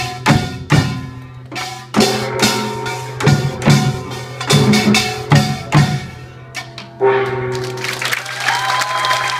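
Samulnori percussion ensemble of gongs and drums playing its closing strokes, sharp ringing hits about half a second apart. About seven seconds in the playing stops and the audience breaks into applause.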